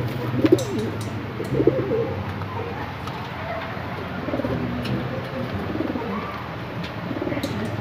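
Several homing pigeons cooing in a wire crate, one call after another about once a second.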